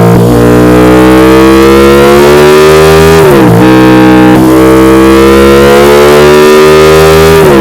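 KTM 1290 Super Duke R's V-twin engine through a Mivv X-M5 slip-on exhaust, accelerating hard: the pitch climbs steadily and falls sharply at an upshift about three and a half seconds in, then climbs again to a second upshift near the end. Very loud throughout.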